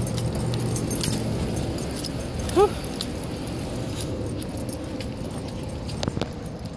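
Light metal jingling with the scattered clicks of walking, as a person in flip-flops walks a dog across pavement. A short rising vocal sound comes about two and a half seconds in, and a couple of sharp clicks follow near the end.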